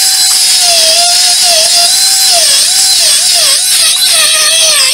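Small pen-style rotary tool running at high speed, its thin cutting disc cutting through a phone logic board's soldered metal shield. The whine dips in pitch again and again as the disc bites into the metal, over a high hiss.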